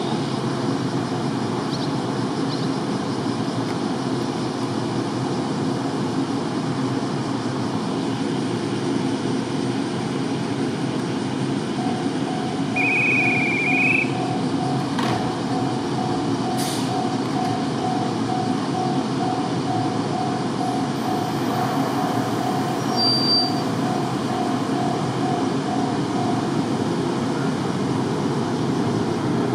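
JR West 103 series electric train standing at a station platform, its onboard equipment giving a steady hum, then starting to pull away near the end. Through the middle a beep repeats about twice a second for some fifteen seconds, with a short whistle and a couple of clicks among it.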